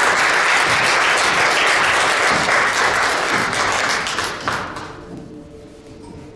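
Audience applauding, dying away about five seconds in, leaving a faint steady hum.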